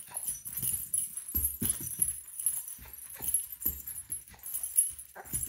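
Irregular soft thuds and rustling, with a high, faint metallic jingle, as a baby wearing metal wrist bangles wriggles and kicks on a bed.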